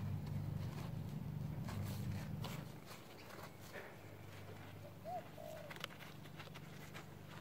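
Gloved hand digging and scraping through loose soil, with soft scratches and rustles. A low steady hum drops away about three seconds in, and a bird gives two short calls a little past the middle.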